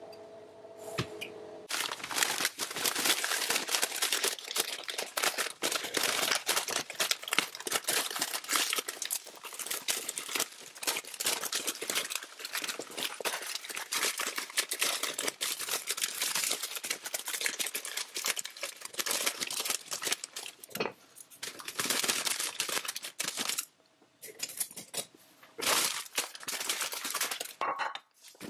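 Clear plastic bag of dried lasagne sheets crinkling and crackling as it is handled and pulled at, the bag refusing to open. It crinkles almost without a break, with a couple of short pauses near the end.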